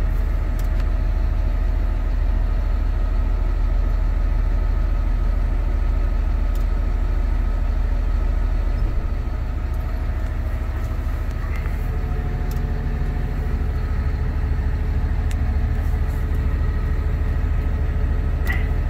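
Caterpillar 534's diesel engine running steadily, heard from the operator's cab; about nine seconds in it drops a little in level and its pitch shifts.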